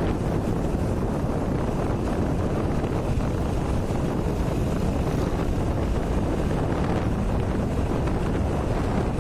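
Steady low rumbling noise with no distinct events or pitch, of the kind made by wind buffeting an outdoor microphone.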